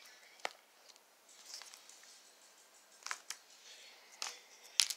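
Purple glitter slime being squeezed and poked by hand, giving about five sharp clicks and pops, the loudest near the end, with soft crackling between them.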